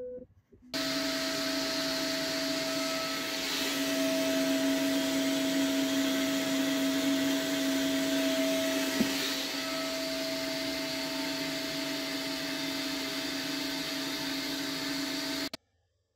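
Vacuum cleaner running steadily, pulling dust through the hose from a CNC router's brush shroud while the spindle mills wood, a constant hum with a held whine. It starts suddenly just under a second in, runs slightly louder through the middle, and cuts off suddenly near the end.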